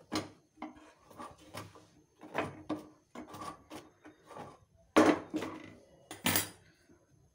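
Kitchen handling sounds at a gas stove: light scrapes and taps as a roti is turned over the burner, then an iron tava griddle is set down on the burner grate with two loud clanks about five and six seconds in.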